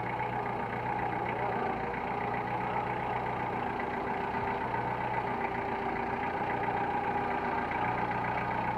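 Small compact tractor's engine running steadily as the tractor is driven along, with a steady higher-pitched whine over the engine drone.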